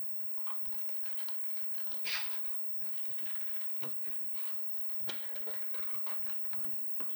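Paper being handled while making a paper cockade: irregular crinkling and scratching, with small taps and one louder rustle about two seconds in.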